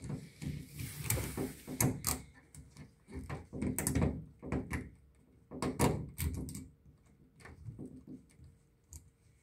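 Handling noise of a wired electrical receptacle being pushed into a plastic wall box and a screwdriver working its mounting screws: irregular clicks, scrapes and light knocks in several short clusters.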